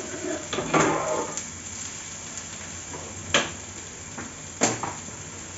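A ladle stirring and scraping in a metal pot of dal for about the first second, then two sharp metal clinks of utensils, over a steady low hiss of cooking on the gas stove.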